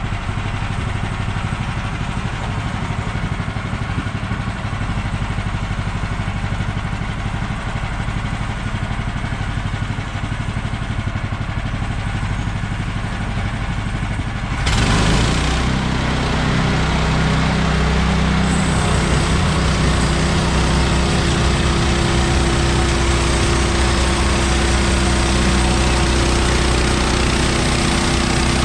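Gas engine of a Woodland Mills HM130 portable bandsaw mill running steadily. About halfway in it jumps sharply louder and brighter, then carries on at that higher, steady level, as when the mill is throttled up and the band blade brought up to speed.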